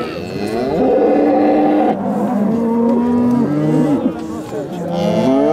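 Several cattle mooing at once, long drawn-out calls overlapping one another, with a new call rising in pitch near the end.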